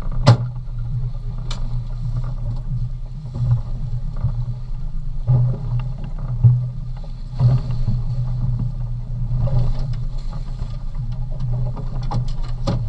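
Fishing boat's engine running with a steady low hum. There is a sharp knock just after the start and a few clicks near the end.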